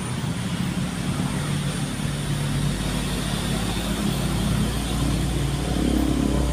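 Motor vehicle engine running, a steady low rumble over road traffic noise that grows a little louder near the end.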